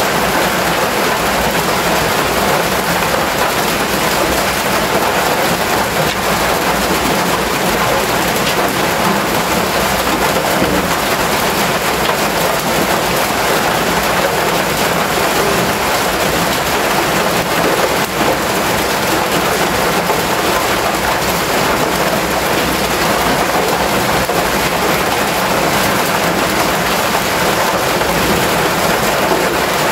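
Rain falling steadily on a corrugated metal roof, a loud, even hiss.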